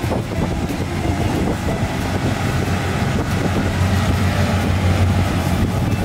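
Kubota DC-70 Plus rice combine harvester running while harvesting: a steady, loud low drone from its diesel engine and threshing machinery, with a dense rattle over it.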